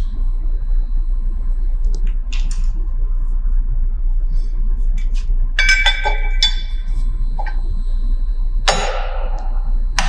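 Wrench and metal parts clinking on a CNC saw's arbor nut and blade guard: a few light metallic clicks, a ringing clink about six seconds in and a scraping knock near the end, over a steady low hum.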